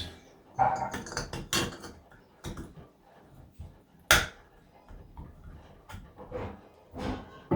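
Scattered clicks and knocks of a shower valve's trim cover being handled and fitted back into place, with one sharp knock about four seconds in.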